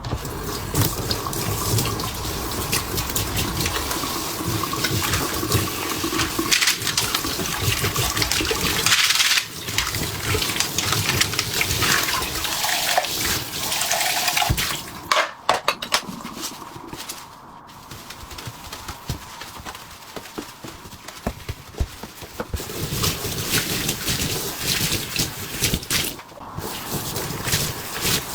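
Running water splashing in a sink while pots and bowls are washed, with clinks and knocks of the dishes. The water eases off about two thirds of the way through, leaving scattered clinks, then picks up again near the end.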